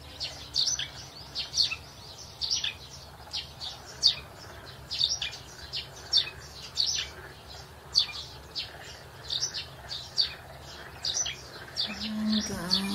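Small birds chirping repeatedly, several short high chirps a second, some sliding down in pitch, over a faint low hum. A voice starts near the end.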